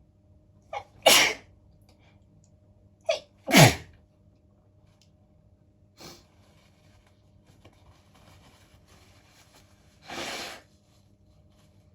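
A woman sneezing twice, about two and a half seconds apart, each loud sneeze set off by a quick sharp intake of breath; the sneezes are brought on by sniffing powder. A short sniff follows about six seconds in, and a longer noisy breath out near the end.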